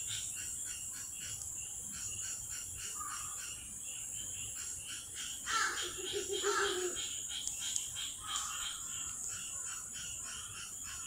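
A chorus of frogs calling in fast, evenly repeating pulses, with a louder, lower pulsing call about halfway through.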